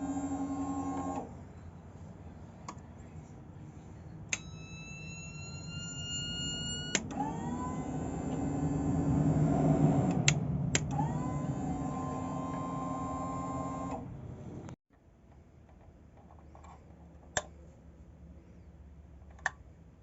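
The no-start Yamaha V Star 950's electric starting system whirring in several spells, each with a steady whine, one of them rising slowly in pitch, with no engine catching; a few sharp clicks follow near the end.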